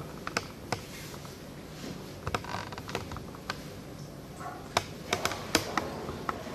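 Irregular light clicks and taps of hand-handling noise, with a few sharper clicks about five seconds in.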